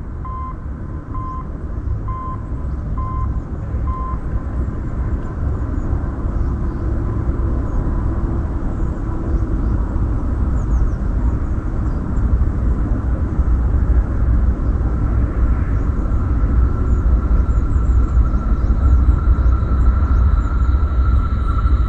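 Approaching train heard through rails from a camera lying between them: a low rumble grows steadily louder, and from about halfway the rails begin singing with a high steady ringing tone that strengthens toward the end, with more, higher tones joining at the very end. A short beep sounds about once a second during the first few seconds.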